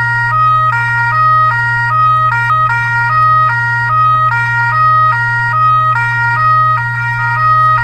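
Electronic fire truck siren in a hi-lo pattern, its pitch stepping back and forth between two tones a few times a second, over a steady low hum.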